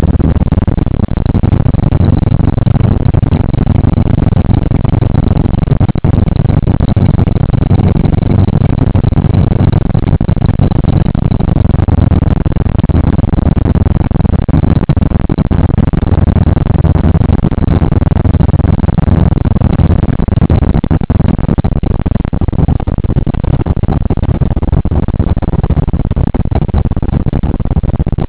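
Steady, loud low rumble inside a moving 1979 Oldsmobile: engine and road noise heard from the cabin.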